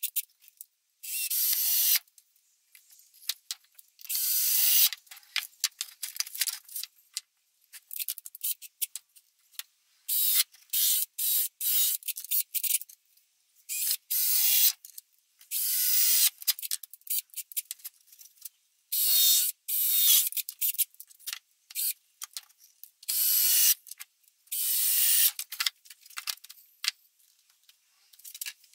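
Cordless drill-driver running in repeated bursts of about a second each, driving screws into a wooden frame, with small clicks and knocks of handling between the bursts.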